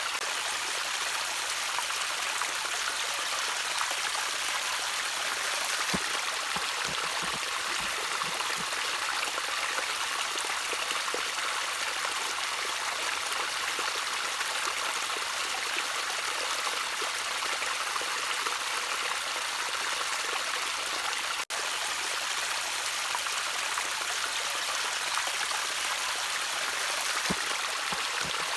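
Water trickling and splashing steadily over rocks in a small stream, an even, continuous wash of sound. A split-second dropout comes about two-thirds of the way through.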